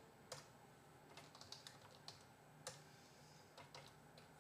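Faint computer keyboard typing: irregular keystrokes, a few louder than the rest.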